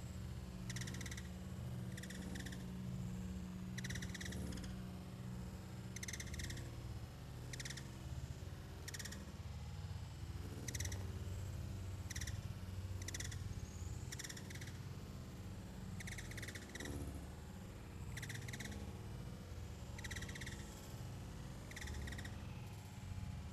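Short chirping calls from a small animal, each made of two or three quick pulses, repeated about every second or two over a low steady hum.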